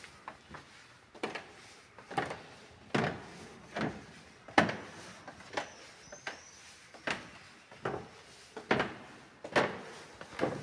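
Slow, even footsteps on a hard floor, a sharp knock a little more often than once a second, each with a short echo.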